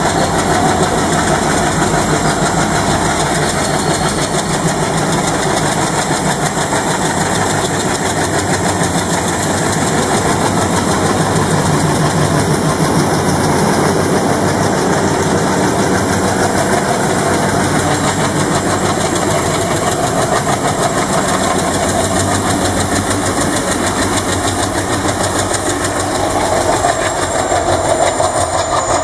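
Two-stroke EMD 710 diesel engine of a WDG-4 (EMD GT46MAC) locomotive running steadily, with a fast, even engine pulse.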